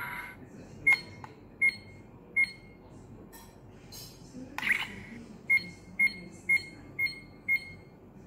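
Electronic beeps from a Bandai Proplica Dragon Ball Radar replica: three short high beeps about three-quarters of a second apart, a brief louder, noisier sound near the middle, then five quicker beeps half a second apart.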